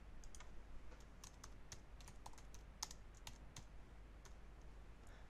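Faint typing on a computer keyboard: a run of irregular keystrokes as a short phrase is typed.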